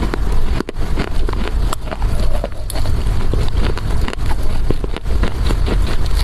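Close-miked chewing of dry loess clay: a dense run of gritty crunches and crackles over a low rumble.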